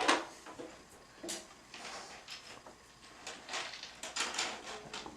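A string of short knocks, scrapes and rustles from things being handled in a small room, the loudest at the very start.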